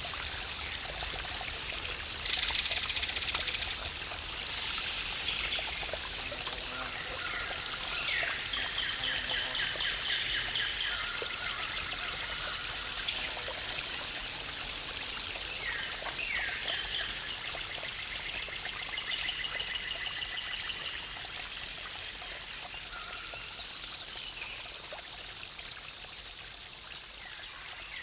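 Waterfall's running water, a steady rush and trickle, with birds calling over it in several short trills and chirps. A constant high thin tone runs underneath, and the whole sound slowly fades down over the last dozen seconds.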